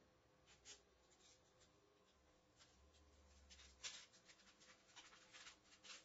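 Faint, scratchy rubbing strokes of a hand smoothing application tape down over cut self-adhesive vinyl, coming thick and fast from about halfway in, with the tape and vinyl being peeled off the backing sheet near the end.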